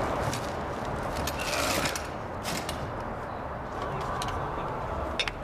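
Low, steady rumble of an underground train dying away, with scattered clicks and knocks of things being handled nearby.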